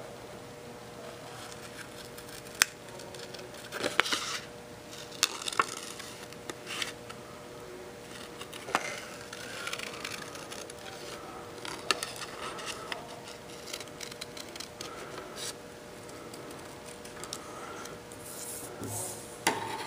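Small scissors cutting through a paper index card: irregular snips and scraping of the blades through the card, with occasional sharp clicks. Near the end, cut pieces of card are shuffled on a wooden tabletop.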